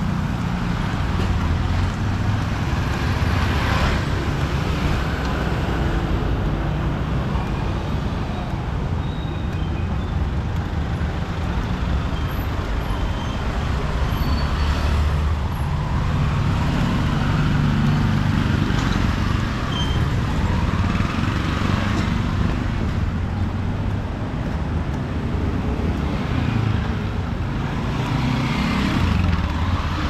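City street traffic: a steady stream of motor vehicles running past, with a few louder swells as vehicles pass close by.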